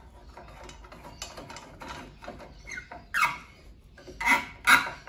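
Screwdriver driving the screw of a Briggs & Stratton Sprint 375 lawnmower engine's air filter cover home: a run of small clicks and rasps, with a few louder squeaks and clicks in the last couple of seconds as the screw tightens.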